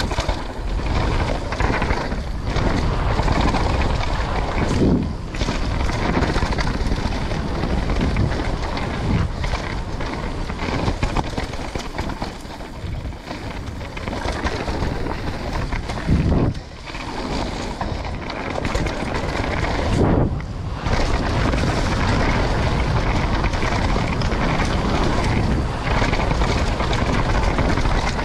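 A downhill mountain bike at speed on a rough dirt trail: wind buffeting the microphone over the steady noise of tyres and bike on the ground. A few louder surges come about five, sixteen and twenty seconds in.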